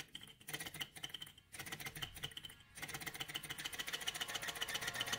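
Small desktop Stirling (hot-air, external combustion) engine with a glass cylinder, running on its alcohol burner: the crank and flywheel give a rapid, even ticking. It breaks off briefly a few times in the first three seconds and grows louder toward the end.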